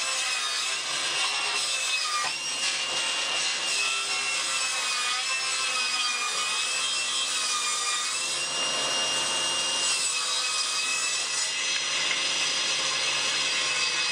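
Table saw ripping a long redwood board lengthwise to straighten its warped edge. The saw runs steadily under load with a high whine that wavers slightly in pitch as the board is fed through.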